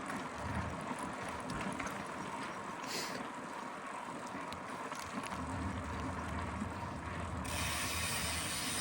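Mountain bike's rear freehub ticking steadily as the rider coasts, with a low rumble joining in about five seconds in.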